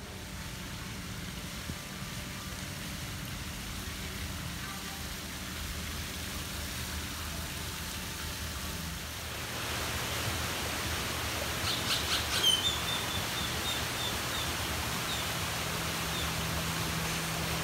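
Outdoor ambience: a steady hiss that grows fuller and louder past the middle, with a small bird chirping a quick run of high notes shortly after.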